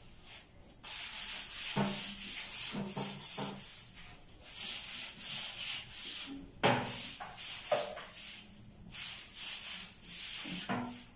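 A scouring sponge scrubbing the inside of a bathtub in repeated rubbing strokes with short pauses between them.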